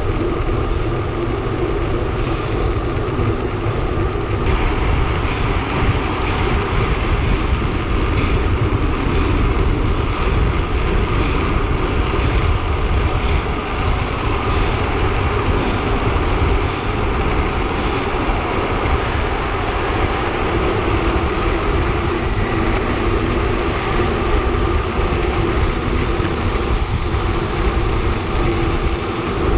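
Steady rush of wind and road noise from a road bicycle riding at speed, buffeting the camera microphone.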